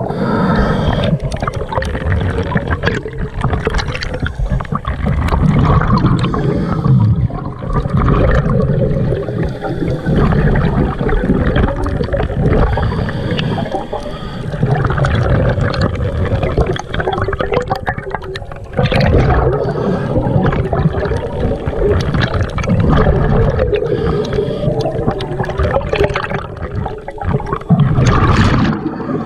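Scuba diver's regulator breathing underwater: rushes of exhaled bubbles in swells every few seconds, between quieter inhalations.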